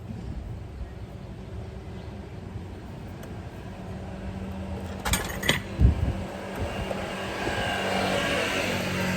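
Scooter engine running with a steady hum, two sharp knocks about five to six seconds in, and a brighter, louder sound building near the end.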